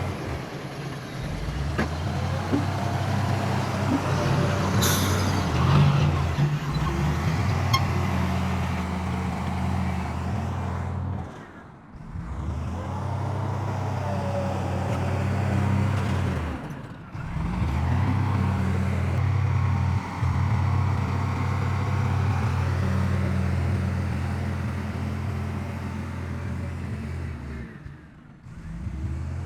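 Heavy diesel engines of earthmoving machines running steadily with a low, even rumble. There is a brief high-pitched sound about five seconds in, and the sound drops away briefly three times.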